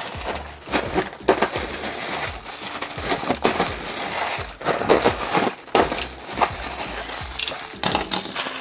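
Plastic air-cushion packing pillows punctured with a box cutter and crushed flat by hand: irregular plastic crackling and rustling as the air is squeezed out.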